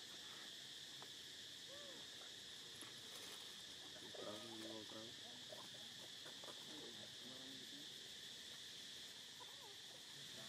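Steady high-pitched insect drone, like crickets, with faint short voices or calls rising and falling now and then, the clearest about four seconds in.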